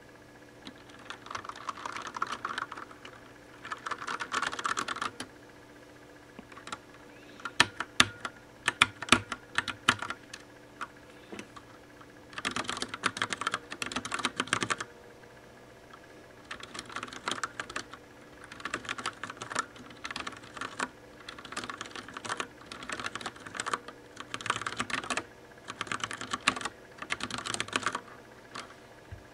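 Typing on a Das Keyboard Professional Silent mechanical keyboard with Cherry MX Brown switches: bursts of rapid key clicks with short pauses between, and a run of louder single key strikes about eight seconds in.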